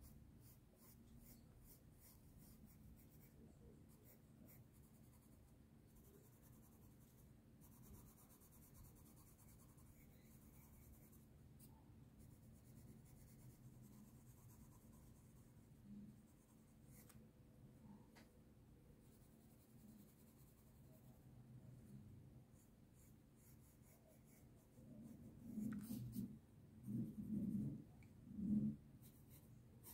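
Faint scratching and rubbing of a wooden graphite pencil shading on sketchbook paper. Near the end come three short, low, muffled sounds, louder than the pencil.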